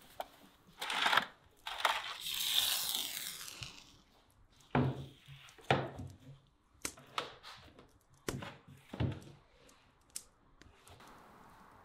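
A large metal roasting tray being handled: a scraping rush as it slides out of the oven, then a series of knocks and thuds as it is set down on a wooden board and shifted into place.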